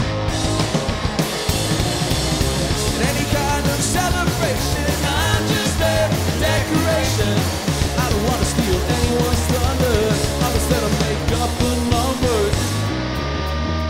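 A rock band playing live with electric guitars and a drum kit, with a melody line wavering in pitch through the middle.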